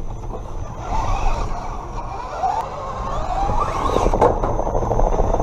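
Redcat Gen7 Pro RC rock crawler driving over rocks, heard from a camera mounted on the truck: the electric drivetrain whines, rising and falling in pitch with the throttle, over scraping and clicking of tires and chassis on rock.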